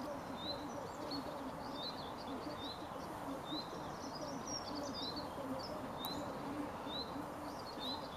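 Birds calling. A small bird repeats a short, high chirp about once a second, and a lower call repeats underneath it.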